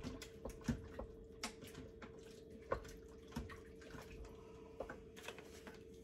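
A utensil stirring a thin, creamy soup in an Instant Pot's metal inner pot: liquid sloshing with scattered light clinks and knocks against the pot, over a steady hum.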